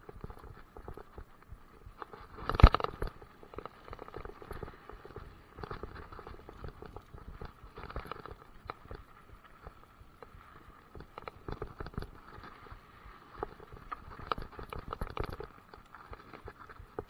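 Mountain bike rattling and clattering over a rough, rocky gravel trail, a fast irregular run of knocks from the bike and tyres, with one much louder knock about two and a half seconds in.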